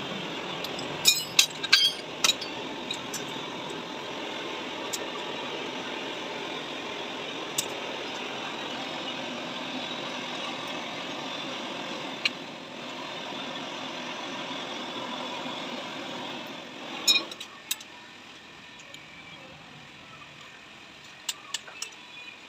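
Sharp metallic clinks of parts and tools being handled, in small clusters, over a steady running mechanical noise that cuts off about three-quarters of the way through.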